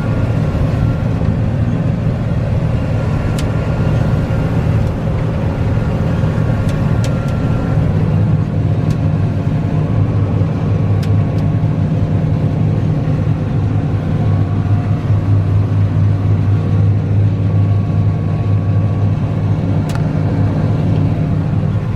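Combine harvester running steadily while harvesting soybeans: a continuous low engine drone with machinery hum, growing a little stronger partway through.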